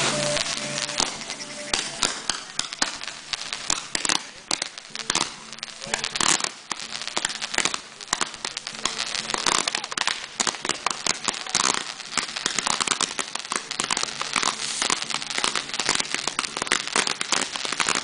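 Ground fireworks crackling and popping: a dense, uneven run of sharp cracks and pops that never lets up.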